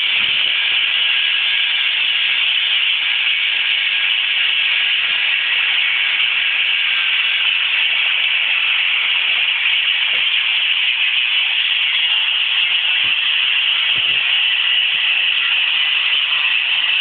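A loud, steady hiss, with a few faint knocks about ten and thirteen to fourteen seconds in.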